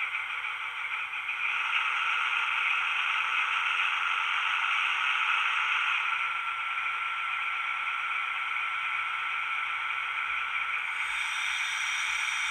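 Model HST power car's DCC sound decoder playing a Paxman VP185 diesel engine running, through the standard small speaker: fairly quiet and flat, with almost no bass. A thin steady whine joins in about halfway through and drops out near the end.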